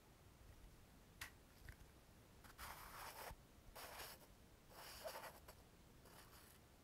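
Faint scratchy rustling, four short strokes in a row after a light tick about a second in.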